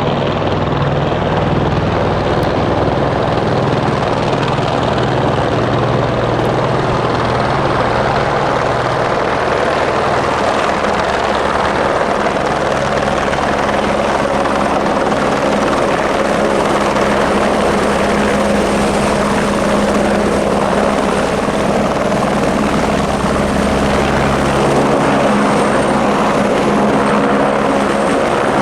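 Helicopter's rotor and turbine running loudly and steadily as it comes in to land, the low rotor tones shifting slightly in pitch now and then.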